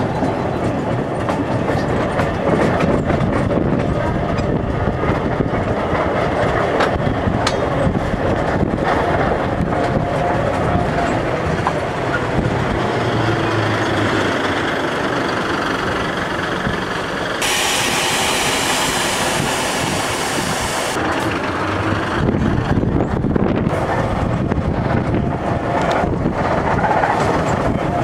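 Rack-and-pinion mountain railway train running downhill, heard from an open carriage window: a steady rumble and clatter of wheels and pinions on the toothed rack rail. A few seconds past the middle, a loud hiss joins in for about three seconds, then stops abruptly.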